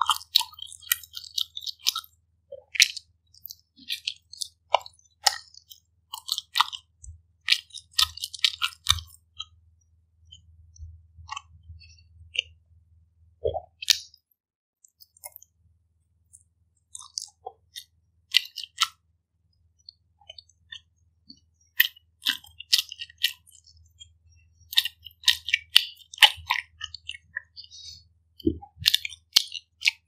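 A person biting and chewing pizza close to the microphone: bursts of small clicks and crackles in clusters with pauses between, busiest in the first nine seconds and again near the end.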